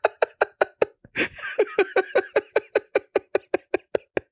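Hearty laughter: a man laughing hard in a fast, even run of short 'ha' pulses, about six a second.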